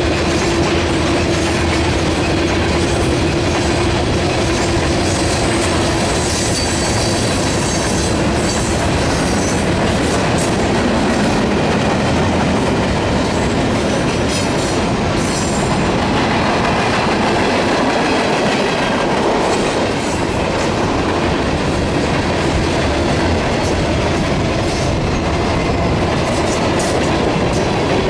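Freight cars of a manifest train rolling past: a steady rumble with wheels clicking over the rail joints. A steady ringing tone runs through the first several seconds.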